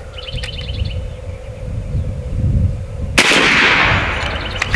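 A single shot from an AEA Terminator .30-calibre regulated semi-auto PCP air rifle about three seconds in: a sharp crack with a tail that dies away over about a second and a half.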